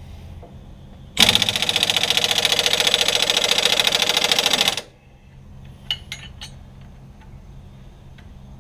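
Impact wrench hammering rapidly on a seized bolt for about three and a half seconds, starting about a second in, then a few light metallic clicks.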